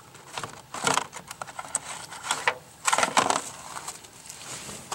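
Metal handle of a flux brush scraping and clicking inside a small plastic container as thick epoxy putty is dug out and scraped onto cardboard, in a few short bouts, about a second in and again around three seconds in.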